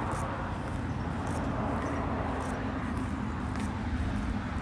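Steady low outdoor rumble with no clear single source, at an even level throughout.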